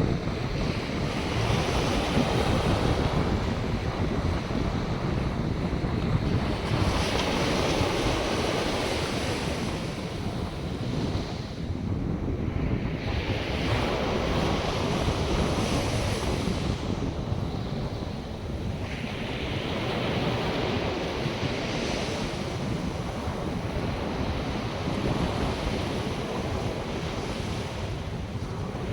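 North Sea surf: waves breaking on the beach in a continuous wash, a new wave hissing in every five to six seconds, with wind rumbling on the microphone.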